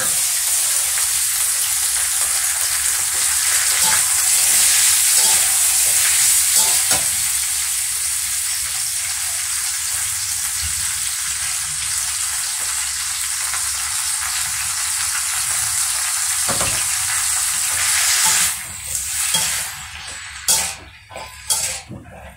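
Baby mustard greens dropped into hot oil in a wok, setting off a loud, steady sizzle that starts at once. Near the end the sizzle dies down and a metal spatula stirring the greens knocks against the wok a few times.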